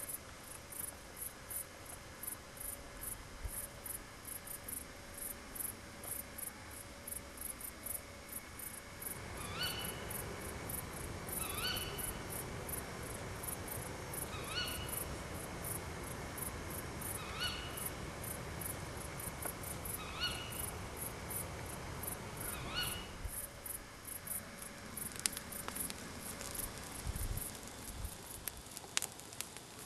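Crickets chirping steadily, about three high chirps a second. From about a third of the way in, an animal call with a rising pitch repeats six times, roughly every three seconds, over a low rushing noise. Scattered crackling clicks come near the end.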